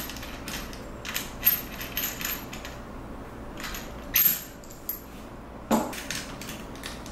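Irregular light metal clicks and clinks as the threaded cable connector is unscrewed and worked loose from the cable head on a Robocam S sewer inspection crawler, with a few sharper taps about one and a half, four and five and a half seconds in.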